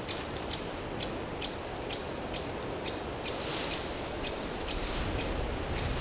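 Handheld electromagnetic field meter ticking steadily about twice a second, with a few short high beeps near the middle, over a low rustle of footsteps in dry fallen leaves.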